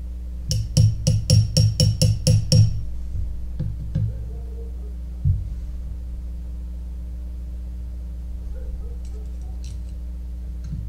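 Small metal padlock parts being handled while the lock is taken apart: a quick run of about nine sharp, ringing clicks, roughly four a second, then a few single clicks and a duller knock, with faint ticks near the end.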